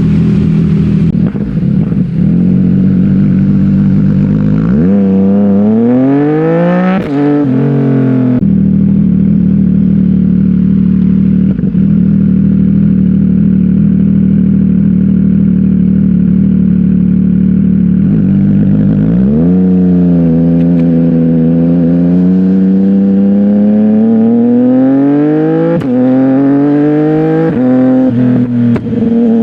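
CFMOTO 675NK's three-cylinder engine through a titanium full-system aftermarket exhaust, idling steadily, then revved up about five seconds in and dropping back to idle. From about nineteen seconds in the revs climb and hold high, with several quick blips near the end.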